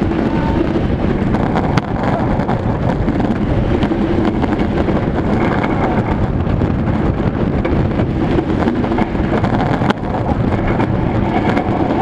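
Roller coaster train running along its steel track: a loud, steady roar of wheels on rail mixed with wind buffeting the microphone.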